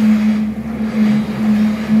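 SANY excavator's diesel engine running steadily under load with a constant low hum while the boom works the bucket.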